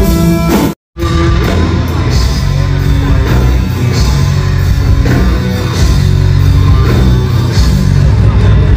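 Heavy metal band playing live, with drums, electric guitar and bass. The sound cuts out completely for a split second about a second in, then the music carries on.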